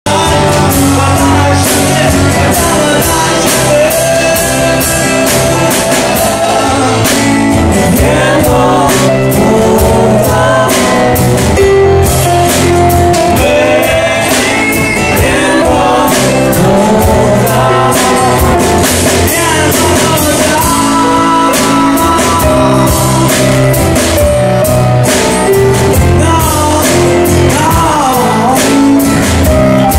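Live folk-rock band playing: strummed acoustic guitars and a snare drum struck with bundled rod sticks under male voices singing.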